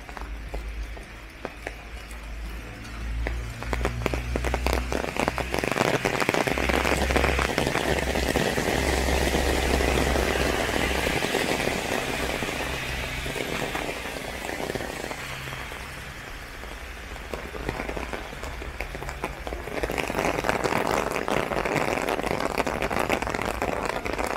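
Heavy rain pattering on an umbrella, a dense crackle of drops that swells after a few seconds, eases off in the middle, and grows heavier again near the end, with a low rumble underneath.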